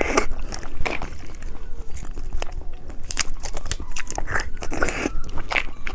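Close-miked crunching and chewing of candy, a run of irregular sharp crunches and crackles.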